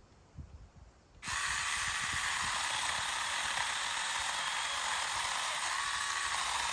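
Saker mini cordless electric chainsaw starting about a second in and running steadily, its chain cutting through a pine branch with a loud, even, hissing buzz.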